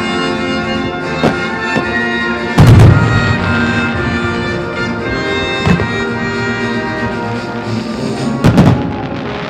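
Aerial firework shells bursting over orchestral music with brass playing through loudspeakers. Two deep booms stand out, about three seconds in and near the end, with lighter bangs between.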